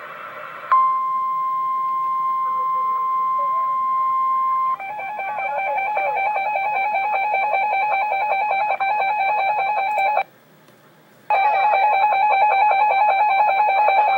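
Emergency Alert System alert tones. A steady single high-pitched alarm tone sounds for about four seconds and then switches to the harsher two-tone EAS attention signal. That signal cuts out for about a second near the ten-second mark, then resumes.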